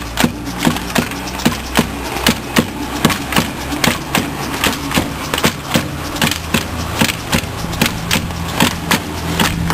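Wooden sticks knocking on the street pavement over and over, sharp irregular strikes about three a second. A steady low hum comes in near the end.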